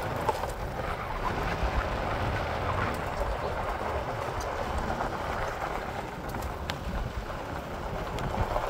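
4x4 vehicle driving down a rough dirt road: steady tyre and gravel noise over a low rumble, with wind on the microphone and scattered small knocks and rattles.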